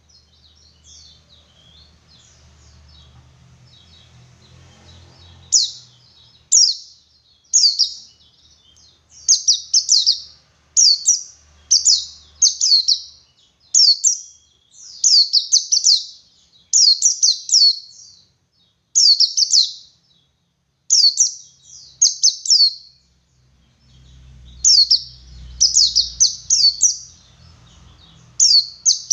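Pleci buxtoni white-eye singing in the 'ngalas' style: short, high, quick phrases sweeping downward and repeating about once a second. It is faint for the first few seconds, then loud.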